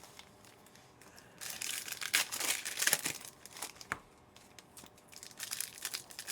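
Trading-card pack wrappers being torn open and crinkled by hand, in irregular bursts, starting after about a second and a half, with a sharp rip near the middle and more crinkling near the end.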